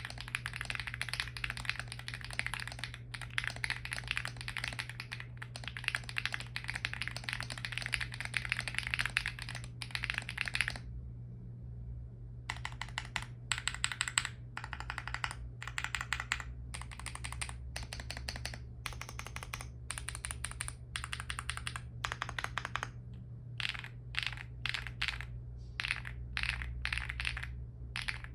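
Typing on a 65% acrylic-case mechanical keyboard with lubed and filmed Gateron Baby Kangaroo tactile switches and ABS keycaps: fast continuous clacking at first, then after a short pause, separate short bursts of key presses, as in testing the stabilized keys.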